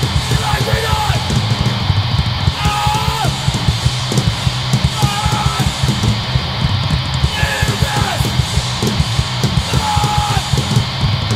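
Hardcore punk band playing live: distorted guitars, bass and fast drums, with shouted vocals in short phrases every couple of seconds.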